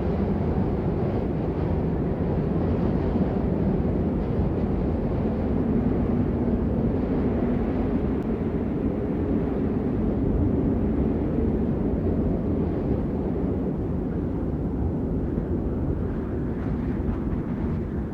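Steady rain, an even, deep rushing with little hiss.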